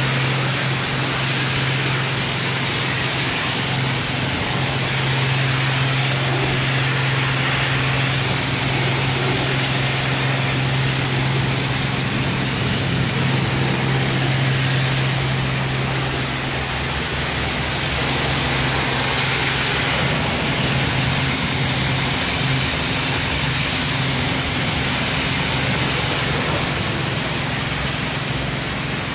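High-pressure water jet from a self-service car wash lance spraying steadily, rinsing a car, with a steady low hum underneath.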